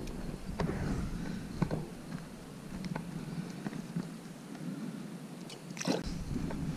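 Irregular light clicks and taps, with a sharper click just before the end. A low wind rumble on the microphone eases off for a few seconds in the middle.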